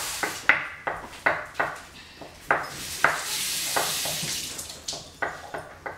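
Kitchen knife chopping boiled eggs on a wooden cutting board: a string of sharp knocks, two or three a second. A steady hiss joins in for about a second and a half in the middle.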